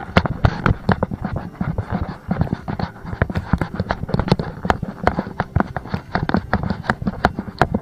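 Footsteps and rustling of a hiker walking a trail: a rapid, irregular run of crunches and knocks.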